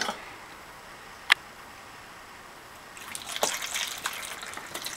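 Lemon water poured from a stainless steel pot through a mesh strainer and plastic funnel, splashing and trickling into a plastic cup, starting about three seconds in. A single sharp click comes about a second in.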